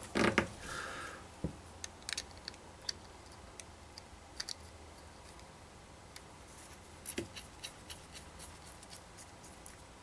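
Scattered small clicks and taps of metal e-cigarette parts being handled, as a drip tip is fitted into a stainless steel drip shield. The clicks come at irregular times, a few close together around the middle and near the end.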